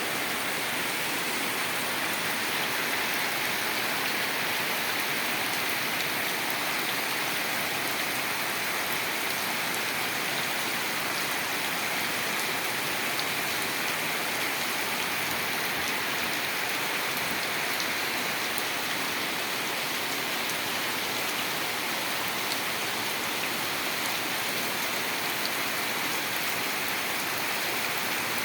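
Heavy rain pouring down, a steady dense hiss of rain on surfaces with scattered faint drop ticks.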